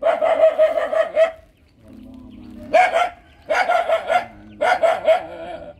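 Animal cries: four drawn-out calls, each held at a steady high pitch. The first lasts about a second and a half, and three shorter ones follow in quick succession from about three seconds in, with a fainter, lower call just before them.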